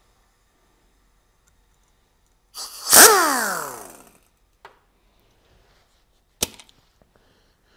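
Pneumatic cut-off wheel given one short burst of air about three seconds in: a loud hiss and spin whose pitch falls steadily as the disc coasts down over about a second. A single sharp click follows a few seconds later.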